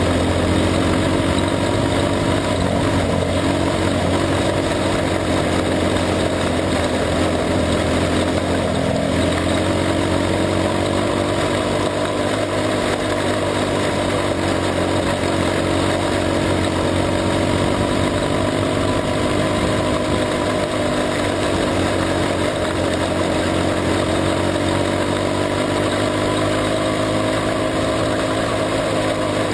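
Junior sprint car engine running hard on a dirt oval, recorded onboard. Its pitch sags and climbs gently as the car goes through the corners, over a steady rush of noise.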